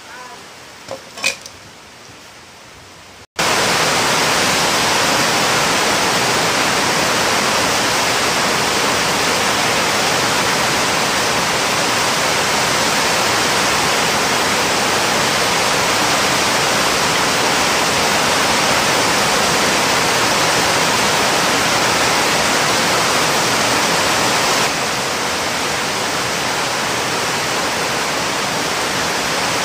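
Steady loud hiss like static, with no tone or rhythm, starting abruptly about three seconds in and dropping slightly in level near the end. Before it, a couple of faint clicks of handling.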